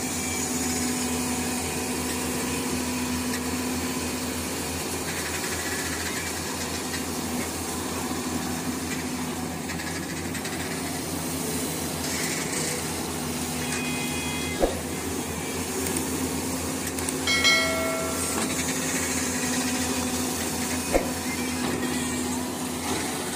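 Diesel engine of a Doosan 140W wheeled excavator running steadily while it digs, with two sharp knocks and a short pitched sound about three-quarters of the way through.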